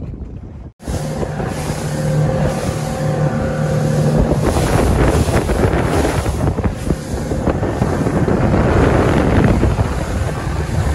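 Outboard-powered boat running at speed, with a steady motor drone under heavy wind buffeting on the microphone. It starts abruptly about a second in and cuts off just before the end.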